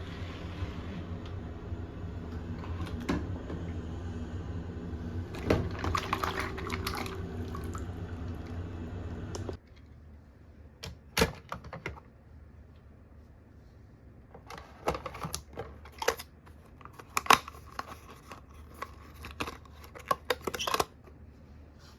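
Sharp clicks and clacks of die-cast toy cars and plastic cases being handled, scattered and irregular. A steady background hum underlies the first half and cuts off abruptly about ten seconds in.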